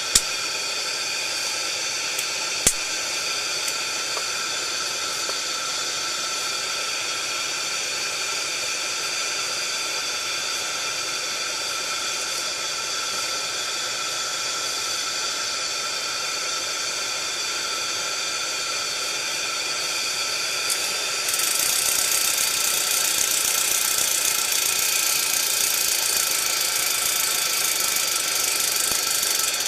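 Steady hiss of a pressure burner heater running, with one sharp click a few seconds in; the hiss turns louder and brighter about two-thirds of the way through.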